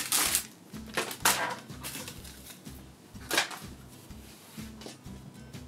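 Plastic bags and packaging rustling and crinkling in a few short bursts, the loudest near the start and about three seconds in.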